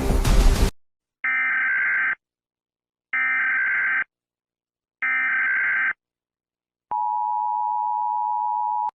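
Emergency Alert System alert: three short bursts of buzzing SAME header data tones, each under a second long and about two seconds apart. From about seven seconds in comes the steady two-tone EAS attention signal (853 and 960 Hz). Music cuts off just before the first burst.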